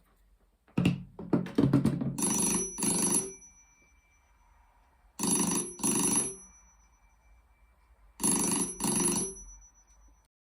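Kellogg Masterphone 1000 telephone bell ringing on ringing current, sounding as three double rings, each pair leaving a lingering gong tone. A brief, irregular rattle of strikes comes first, about a second in. The set's tuned ringer, with a spring-pivoted weighted clapper, is unsuited to 25 Hz ringing current.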